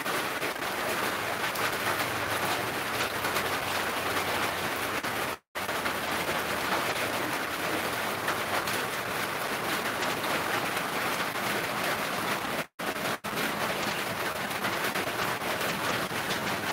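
Steady rain falling and spattering on the wet ground, an even hiss; the sound cuts out for an instant once in the middle and twice more later.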